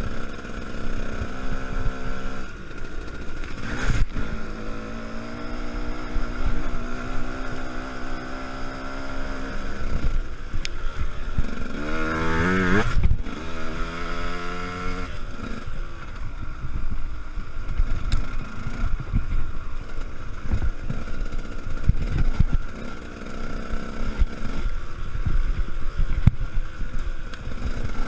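Enduro dirt bike engine running under changing throttle, its pitch rising and falling, with one sharp rev about halfway through.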